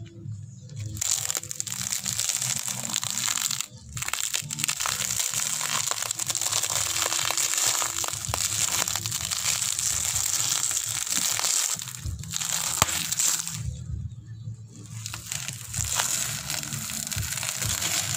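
Plastic-wrapped homemade candies crackling and crunching as a motorcycle's front tyre rolls slowly over them. The wrappers crinkle and the candy is crushed almost continuously, with brief lulls about four seconds in and near fourteen seconds.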